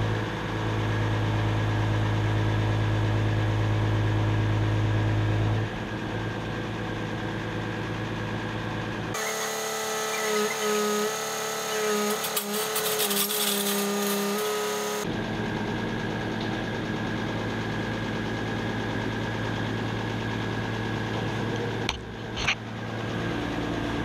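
Truck-mounted hydraulic crane working, its truck engine running steadily to drive the crane's hydraulics, a continuous drone with a low hum and a whine. For about six seconds in the middle the sound changes abruptly to higher, wavering whining tones, then returns to the steady drone.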